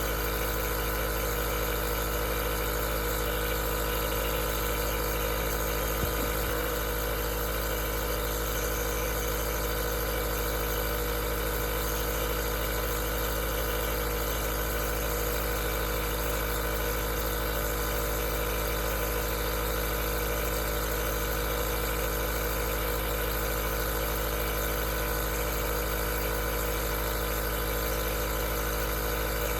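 Aerosol nebulizer running steadily: a constant hum made of several steady tones under an even hiss.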